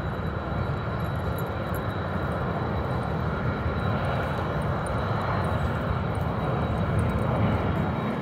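Airplane passing overhead: a steady rumble with a thin high whine, swelling slowly and loudest near the end.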